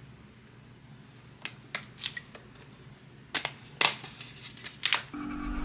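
About half a dozen sharp clicks and taps at uneven intervals, like small hard objects being handled. Music starts just before the end.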